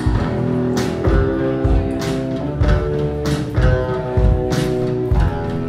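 Live rock band playing an instrumental passage: electric guitars holding sustained notes over a steady drum beat, with loud hits about once a second.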